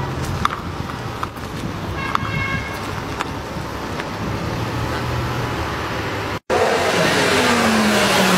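BMW car engine running hard while drifting, with tyre noise. Near the end the sound cuts out for a moment and comes back louder, the engine note falling as the tyres skid.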